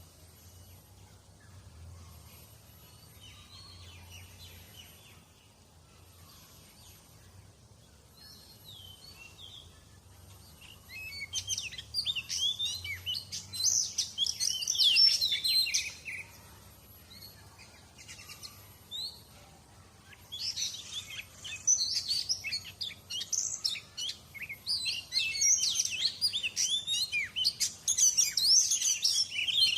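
Songbird chirping and calling in quick, dense runs of high notes. It is faint at first, loud for about five seconds from roughly a third of the way in, pauses, then is loud again through the last third.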